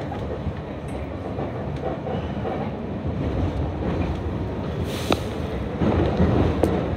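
Subway train pulling out of a station and picking up speed, heard from inside the car: the wheels rumble on the rails and grow louder as the train enters the tunnel, with a single sharp click about five seconds in.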